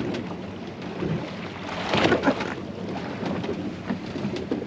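Wind buffeting the microphone and water sloshing against the hull of a small fishing boat at sea, with a louder burst of noise about two seconds in.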